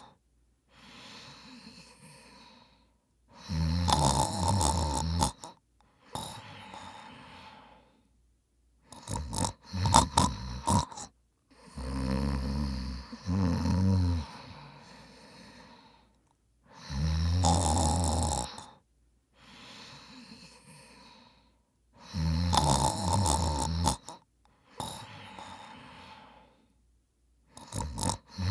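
A man snoring loudly in a slow rhythm, with a loud rattling snore about every four to five seconds and a quieter breath between snores. Around the middle, the snores come as quick rattling double snorts.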